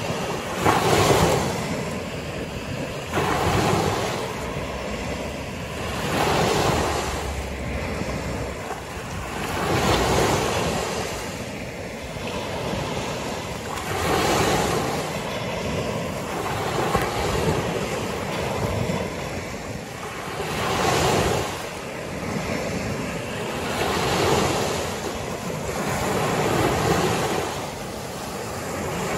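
Small Gulf of Mexico waves breaking on a sandy beach and washing up the shore, the surf rising and falling in a surge about every three to four seconds.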